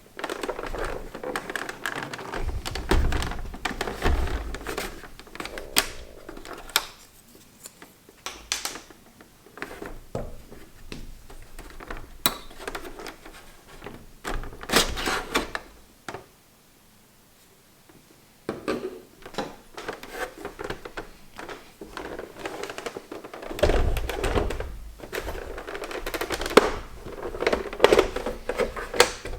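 Hand-handling noises from taking a PS3 Slim console apart: irregular clicks, taps and rubbing of plastic casing parts and tools, with a pause of a couple of seconds a little past halfway.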